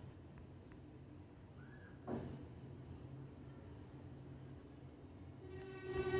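A cricket chirping steadily: one short, high chirp about every three-quarters of a second, faint, over a low steady hum. A brief rustle comes about two seconds in.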